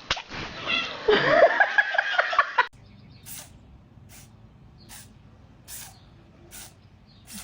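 A cat sneezing over and over: six short, sharp sneezes, each under a second after the last. Before them, for the first two and a half seconds, come loud pitched cries that glide up and down, which break off abruptly.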